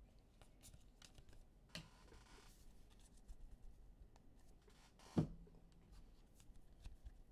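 Faint rustling and light clicking of baseball trading cards being flipped through by hand and stacked, with one brief louder knock about five seconds in.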